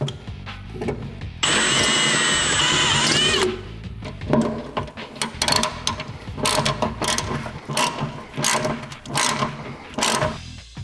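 Power drill running for about two seconds as it drills out a factory hole in the Jeep's body to size for a rivet nut, its pitch dropping as it winds down. Then a long run of irregular sharp metallic clicks and clacks.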